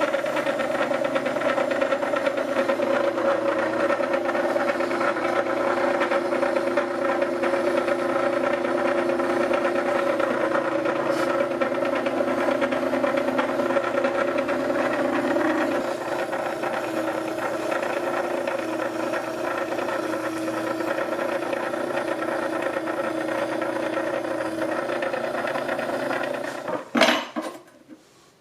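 Benchtop wet-wheel whetstone grinder running steadily with a faint rattle while a planer knife is ground on the stone, its tone shifting slightly about halfway through. Near the end the running sound stops, with a short clatter.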